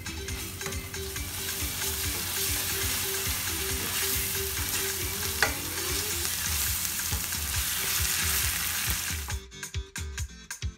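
Tomato paste and sofrito sizzling steadily in hot oil in a stainless steel pan as they are stirred with a spoon. The sizzle stops suddenly near the end and music with a beat takes over.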